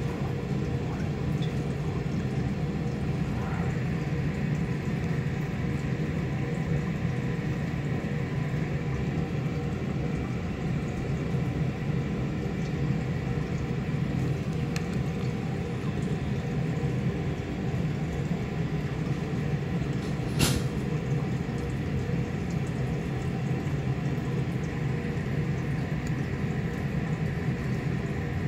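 Steady low background rumble, with a single sharp click about twenty seconds in.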